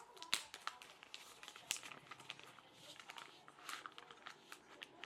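Product packaging being opened by hand: faint rustling with many small irregular clicks and crinkles.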